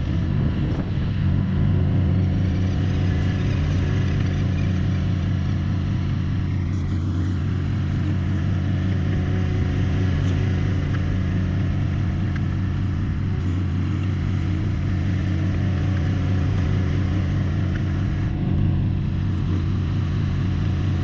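An engine running steadily at a constant speed, low and even throughout.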